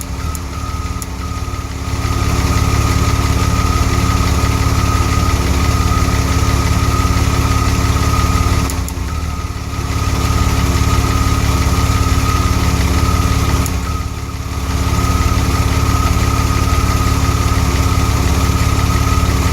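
DeLorean DMC-12's PRV V6 engine idling with an occasional misfire: the running sags briefly near the start, about nine seconds in and again about fourteen seconds in, then picks back up. A steady high whine runs over the idle.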